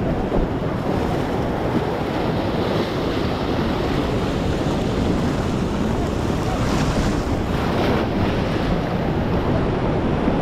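Heavy surf washing in over and around the rocks of a jetty, a steady rushing hiss with a wave surging through a little past the middle, and wind rumbling on the microphone.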